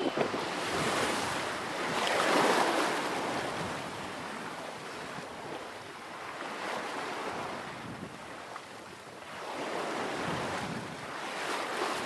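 Wind and sea water rushing past a sailing yacht moving under sail alone, with wind buffeting the microphone. The rush swells about two seconds in, eases off, and builds again near the end.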